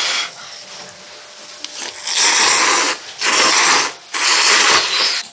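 A woman blows briefly on a chopstick-load of instant ramen noodles, then slurps them up in three long, loud slurps about a second each.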